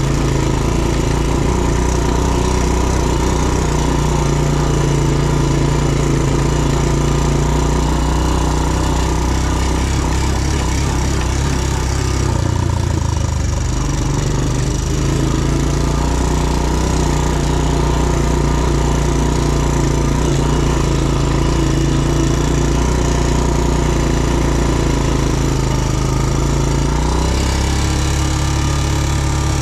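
ATV engine running under way, its note mostly steady and shifting in pitch about halfway through and again near the end.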